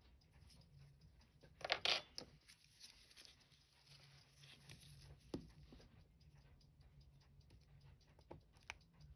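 Faint small clicks and scrapes of watchmaker's hand tools working on a wristwatch, with a short scraping rustle about two seconds in as the loudest sound and a few single sharp clicks later, over a low steady hum.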